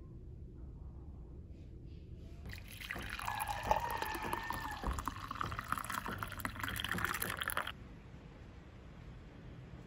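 Black coffee poured into a glass mug: a splashing pour of about five seconds that cuts off abruptly, with a few dull thuds of footsteps stomping on the floor above.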